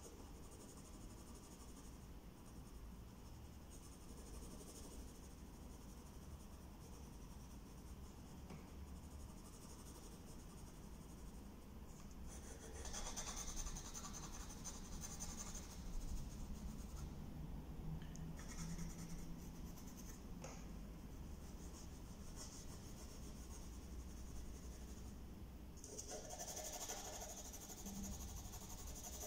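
Pencil strokes scratching and rubbing across paper on a drawing board, mostly faint. Two louder bouts of quick shading strokes come about thirteen seconds in and again near the end.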